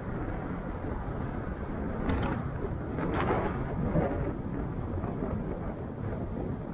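Steady wind rumble on the microphone with road noise from riding, a brief sharp click about two seconds in, and a louder rush of noise around the middle.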